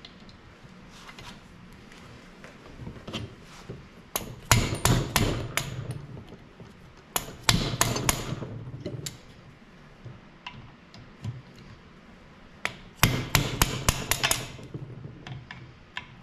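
A hammer striking a hand impact screwdriver to break loose the Phillips screws holding the magneto stator on a snowmobile engine. The blows come in three quick bursts of several sharp metallic strikes each, with faint tool-handling noise between.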